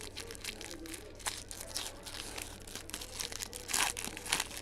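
Foil trading-card pack wrappers crinkling and tearing as football card packs are opened and handled, a dense crackle with a couple of louder rips near the end.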